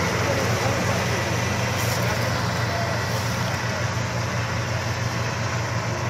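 New Holland 8070 combine harvester running steadily while it cuts wheat: a constant low engine hum under the hiss of its threshing machinery, growing slightly fainter as it moves away.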